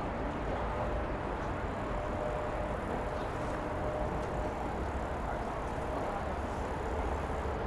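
Steady urban night ambience: a low, even rumble of distant road traffic, with a faint hum for a few seconds near the start.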